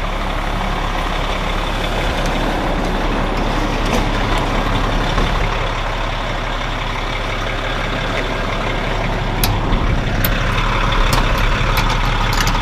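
Semi truck's diesel engine running steadily, heard from inside the cab as it warms up. A few sharp clicks come in the last few seconds, and a hiss starts about ten seconds in.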